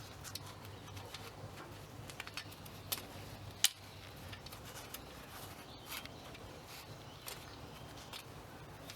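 Scattered clicks and light metal taps of a spanner working on the nuts of a reel mower's roller cradle, one sharp click about three and a half seconds in the loudest, over a faint steady low hum.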